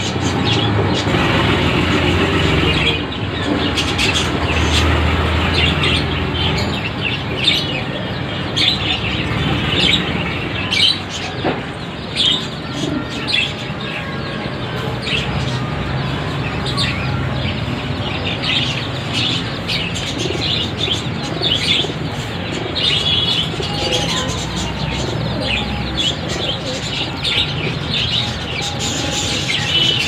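Caged birds chirping and calling: many short, high chirps scattered throughout, over a steady low background rumble.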